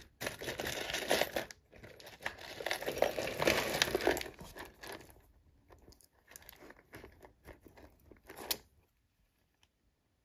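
A bag crinkling and rustling in bursts as jewelry is rummaged out of it, followed by a few scattered light clicks of jewelry pieces knocking together.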